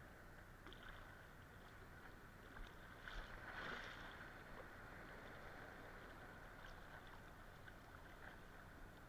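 Near silence: a faint steady hiss with a few faint ticks and a brief swell of noise about three and a half seconds in.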